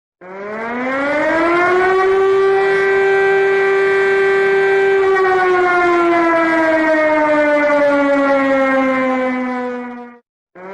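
Chinese emergency alert siren wailing: the tone rises over about two seconds, holds a steady pitch, then slowly falls from about five seconds in before cutting off abruptly, and after a short gap starts rising again.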